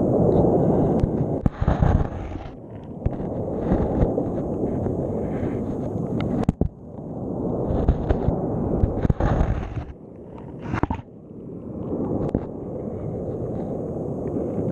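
Underwater rumble of surf surging over the sea bed, swelling and fading in waves, heard from inside a GoPro's waterproof housing. Sharp knocks and clicks come now and then as the housing scrapes and bumps along the bottom.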